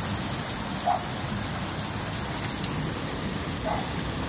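Heavy rain falling steadily on the ground and roofs as an even hiss, with two short faint sounds, one about a second in and one near the end.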